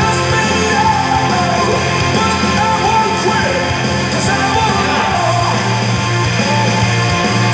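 Loud rock music with a singing voice over a steady bass line.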